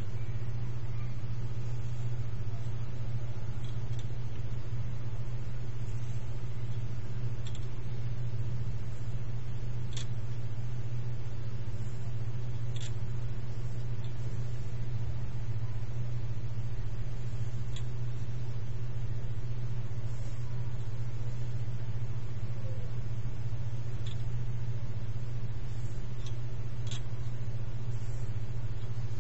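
Steady low hum, with a few faint clicks scattered through it.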